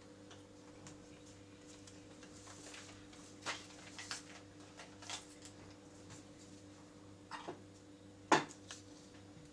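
Crockery being handled on a table: short clinks and knocks of plates, bowls and a spoon being moved, with one louder clatter near the end, over a faint steady hum.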